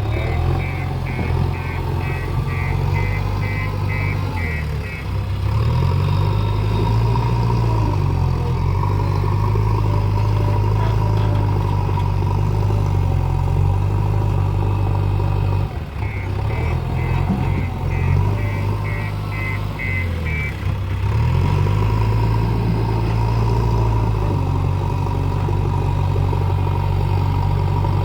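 JCB 3DX backhoe loader's diesel engine working under load, its speed rising and falling repeatedly. Its reverse alarm beeps about three times a second during two stretches, at the start and again about halfway through, as the machine backs up.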